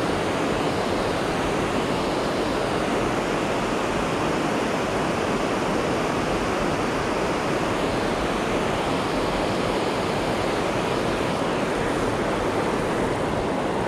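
Steady, even rush of the Youghiogheny River's flowing water.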